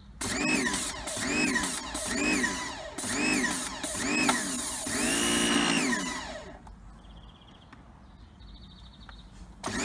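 Titan electric pressure washer running in surges, its pitch rising and falling about twice a second, then holding steady for a moment before it cuts out about six and a half seconds in. It starts up again just before the end.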